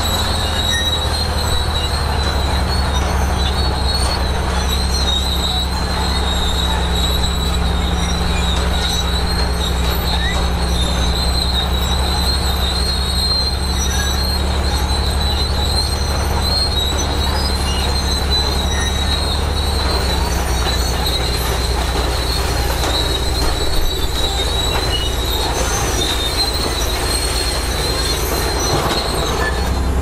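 Crawler bulldozer working, its diesel engine running steadily, with a continuous high-pitched squeal from the steel tracks. The engine note shifts slightly lower about two-thirds of the way through.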